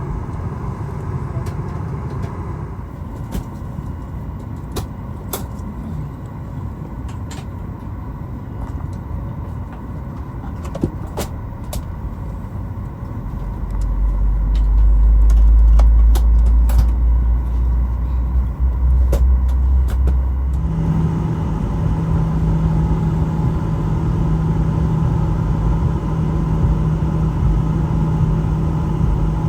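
Cabin noise inside a Boeing 737 airliner, a steady rumble with small rattles and clicks. About 14 s in a deep rumble swells and gets louder, and from about 21 s a steady droning hum holds.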